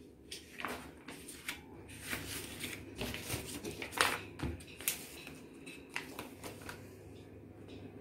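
Paper instruction booklet being handled and its pages turned: irregular soft rustles and light taps of paper.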